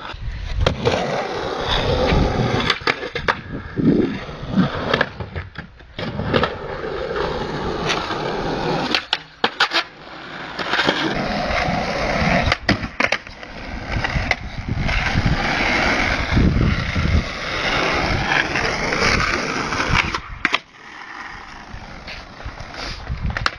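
Skateboard wheels rolling over rough concrete with a continuous gritty rumble, broken by sharp clacks and slaps of the board hitting the ground every few seconds. Recorded on a mobile phone's microphone.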